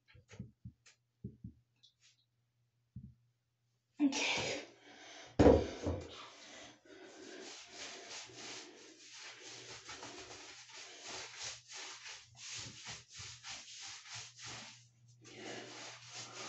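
Hands scrubbing dish soap into a wet dog's coat in a bathtub: quick, repeated wet rubbing strokes through the second half. About four seconds in there is a short hissing burst followed by a thump.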